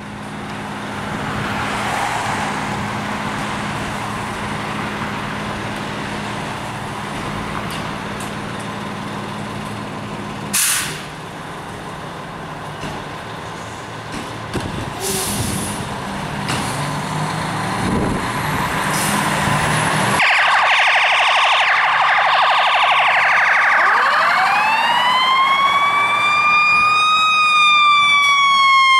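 Fire apparatus diesel engines idling, with a brief loud hiss of air about ten seconds in. Sirens start about twenty seconds in, and a siren winds up in a long rising wail that peaks near the end and begins to fall as the engine company responds.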